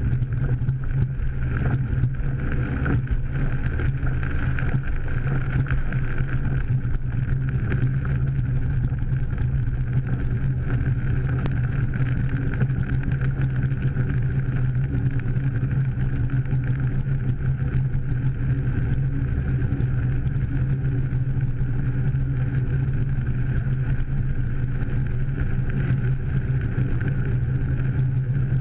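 Steady engine and road noise heard inside a moving car's cabin: a constant low drone with a fainter steady hum higher up, unchanging throughout.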